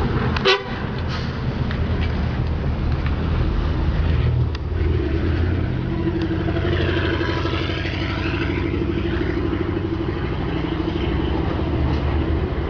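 LiAZ-677M city bus with its V8 petrol engine running steadily. About half a second in there is a brief shrill pitched sound, the loudest moment, and from about four and a half seconds a steady whine runs over the engine.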